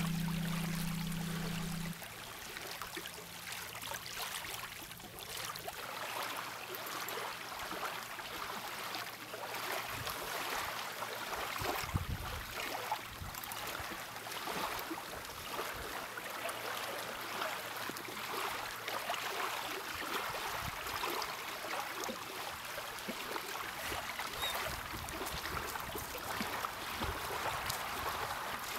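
Background music dies away about two seconds in, leaving a steady watery wash with many small ticks: lake water lapping on a gravel shore. A single low thump comes about twelve seconds in.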